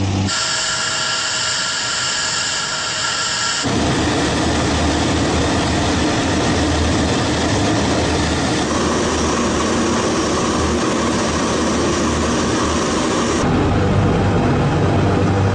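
Tu-95MS bomber's four Kuznetsov NK-12 turboprop engines with contra-rotating propellers running, in several cut-together takes. The first is a high steady turbine whine; it gives way at about four seconds to a fuller steady drone with a low propeller hum, which grows heavier near the end.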